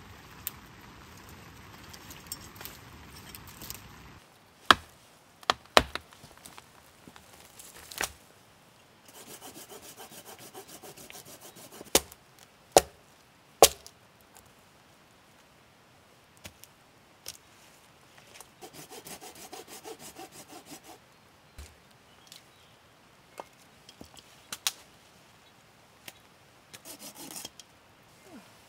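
A hand saw cutting dead wood in bursts of quick back-and-forth strokes, along with several loud, sharp cracks of dead branches snapping. At the start, branches rustle as they are dragged over the ground.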